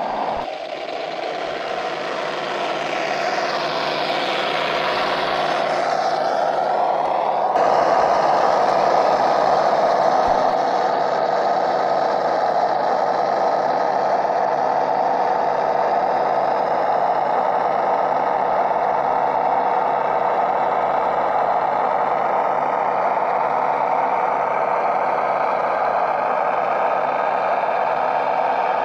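Recorded truck-engine sound played by an RC scale truck's Das Mikro TBS Mini sound module through its small 8-ohm speaker, running steadily as the model drives. In the first seven seconds a higher whine rises and falls, and the sound changes abruptly about seven and a half seconds in.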